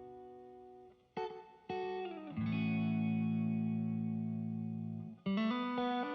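Background music: guitar chords with effects, each struck and left to ring out, with a long held chord in the middle.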